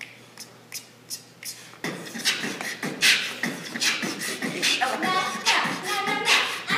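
A few sharp clicks, then from about two seconds in young performers' voices in a loud, rhythmic a cappella beatbox with percussive mouth sounds.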